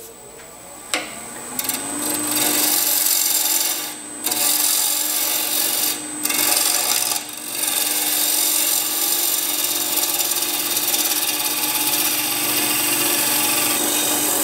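A gouge cutting into a spinning cross-grain wood blank on a Robust Scout wood lathe: a loud, steady shearing hiss as shavings peel off while a bead is shaped. It breaks off briefly about 4, 6 and 7 seconds in as the tool lifts from the wood. A steady hum runs underneath.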